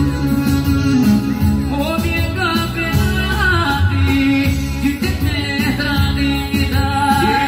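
Live, amplified Albanian folk music: an ornamented, trilling vocal melody over a band with a steady beat and a heavy bass.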